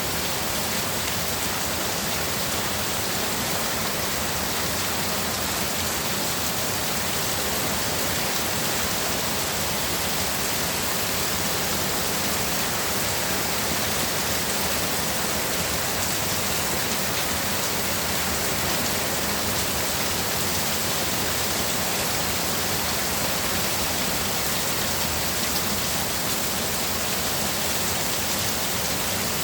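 Heavy downpour: a steady, even hiss of rain.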